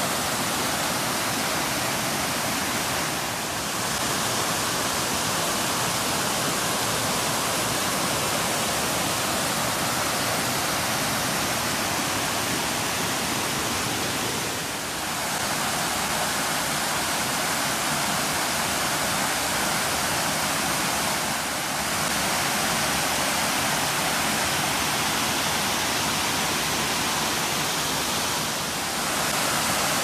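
Steady rushing of white water from the Nunobiki Falls cascading over rock, dipping briefly in level a few times.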